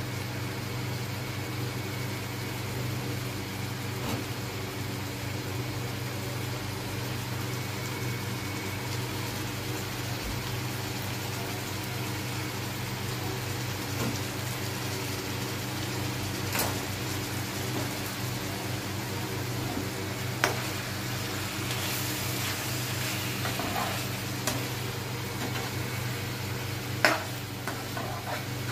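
Chicken gravy simmering and sizzling in a pan over a steady low hum. There are a few sharp knocks of a utensil against the pan, the loudest near the end as a spatula stirs it.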